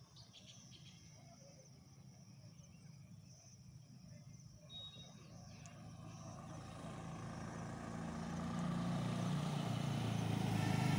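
Motorcycle engine approaching on the road, faint at first and growing steadily louder from about six seconds in.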